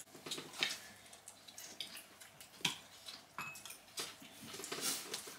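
Spoons and forks clinking lightly on plates and bowls, with quiet eating sounds: a few scattered clicks, the sharpest about two and a half seconds in.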